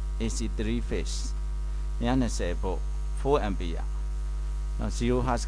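Steady electrical mains hum, loud and constant, with a man's voice speaking in short phrases over it.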